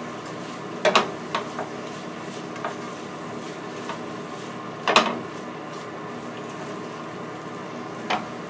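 Carrots sizzling in a skillet as they are stirred with a utensil, with a few sharp knocks of the utensil against the pan, the loudest about five seconds in. Brown sugar has just gone in, melting into a glaze.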